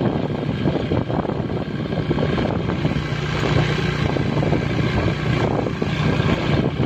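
Motorcycle engine running at a steady cruise with a constant low hum, mixed with wind rushing over the microphone as it rides along.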